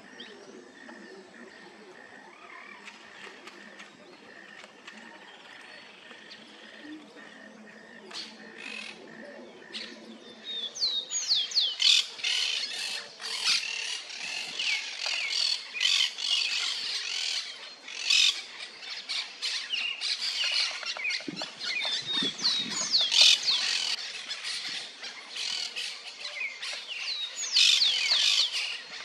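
Yellow-billed cardinals calling. Faint for about the first ten seconds, then a rapid run of sharp, high chirps and squawks with quick up-and-down pitch sweeps that goes on to the end.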